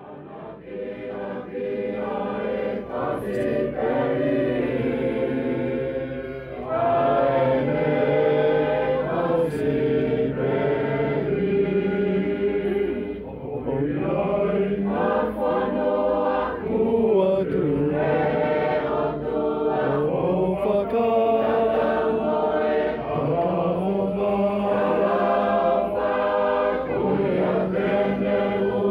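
A congregation or choir singing a slow hymn, many voices together in long held notes, fading in at the start.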